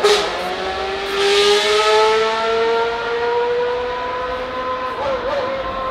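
Mercedes-AMG F1 W10's turbocharged V6 hybrid engine running at a high idle in the pits. Its pitch drops sharply at the start, then creeps slowly upward, with a brief burst of hiss about a second in.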